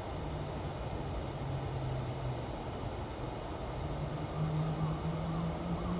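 Steady hiss of the aspiration fan motor in a weather station's ventilated thermometer shield, which draws air up past the temperature sensor. Under it runs a low background hum that steps up in pitch about four seconds in.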